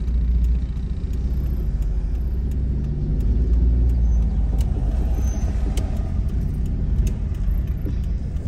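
Car engine running at low speed with a steady low rumble, heard from inside the car's cabin as it creeps forward into a parking space.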